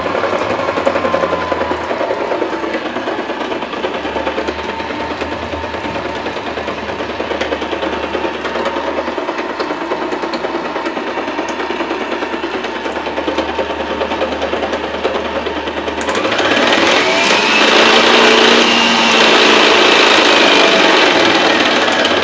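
Denwa electric stand mixer's motor running on its test run after the play in its mixing head was repaired, a steady whine; about 16 seconds in it is switched up, getting louder and rising in pitch, then begins to slow near the end. It runs as it should, the wobble cured.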